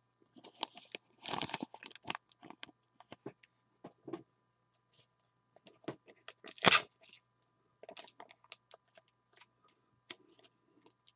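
Scattered small clicks and rustles of trading cards and plastic card holders or wrappers being handled, with one louder rustle about six and a half seconds in.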